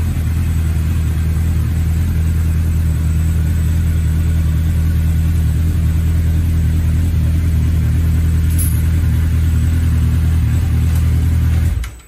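2011 Suzuki GSR750's inline-four engine idling steadily through an aftermarket Remus exhaust. It cuts out suddenly near the end as it is switched off.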